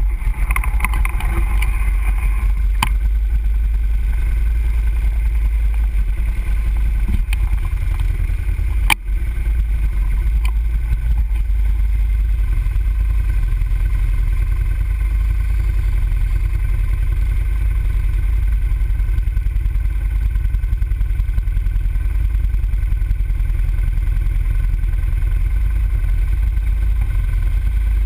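Can-Am ATV engine idling steadily, heard from a camera mounted on the machine, with one sharp click about nine seconds in.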